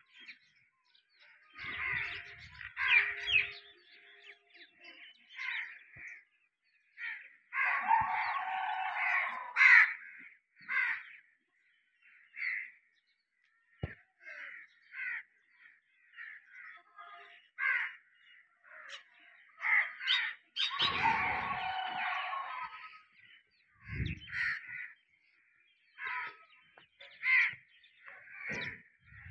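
Birds calling over and over in short calls, with two longer, louder calls about 8 and 21 seconds in, and a dull thump a little after the second.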